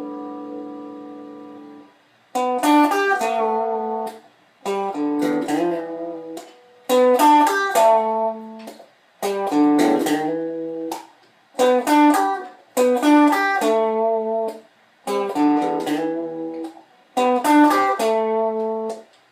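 Stratocaster-style electric guitar: a held chord rings out and fades over the first two seconds, then the same short chord phrase is played about eight times, each lasting roughly a second and a half with a brief silence between.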